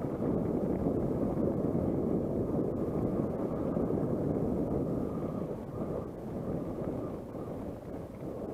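Wind rushing over the microphone of a mountain bike's camera while riding downhill on a dirt and gravel track, mixed with the rumble of the tyres over the loose surface.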